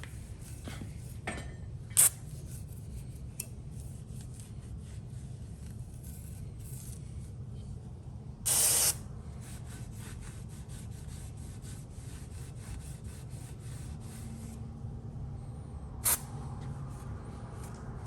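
Rasping, rubbing strokes of hand work on a freshly welded metal intake, likely cleaning up the welds, with a few sharp clicks and one brief loud hiss about halfway through.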